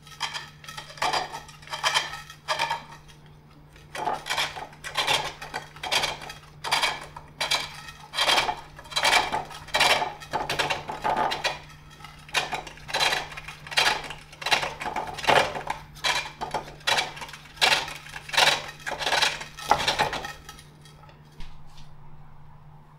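Turning tool cutting a rough green-wood bowl blank on a treadle-driven pole lathe, a clattering scrape with each treadle stroke in a steady rhythm that stops about three seconds before the end. The blank is rough and out of round, which the turner puts down to poor centring or to his axe work.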